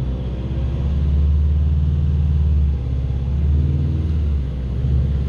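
Volkswagen Amarok's 2.0 four-cylinder turbodiesel heard from inside the cab, running with the revs brought up about a second in and held steady, with sixth gear selected and the handbrake on as a test for a slipping clutch.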